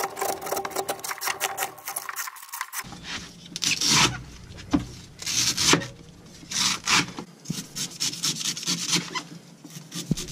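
Kitchen knife shaving and slicing the fibrous husk of a young green coconut: a series of rasping, scraping strokes about half a second each, with short sharp clicks between them.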